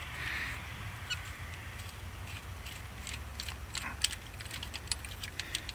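Ratchet wrench clicking in short, irregular runs as it turns an injector puller, drawing a fuel injector out of a Ford 6.7 Power Stroke diesel's cylinder head.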